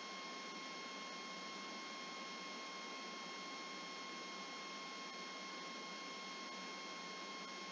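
Faint steady hiss with a thin, steady high-pitched whine over it: the background noise of the voice-over microphone while nothing else sounds.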